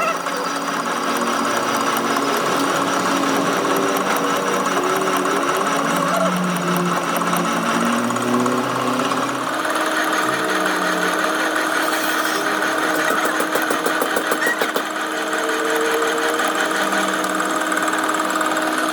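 A workshop power tool running steadily with a rapid mechanical rattle that is strongest from about twelve to fifteen seconds in.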